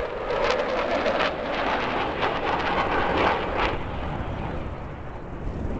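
Fighter jet flying past overhead: a steady jet-engine rush that fades away near the end.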